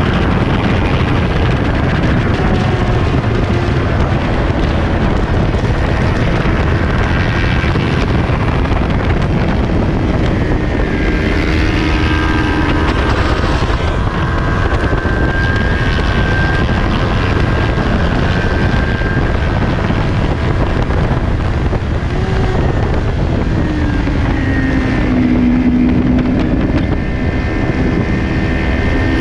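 Heavy wind rush on the microphone of a racing motorcycle at speed, with the 2020 Kawasaki Ninja 400's parallel-twin engine underneath, its note falling and rising through the gears. The engine note climbs most clearly a few seconds before the end.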